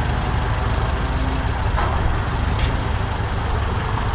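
An engine running steadily at idle, with a couple of faint clicks about two seconds in.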